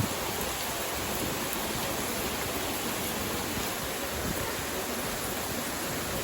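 Steady hiss of rain mixed with rushing river and small waterfall water, an even, unbroken wash of noise.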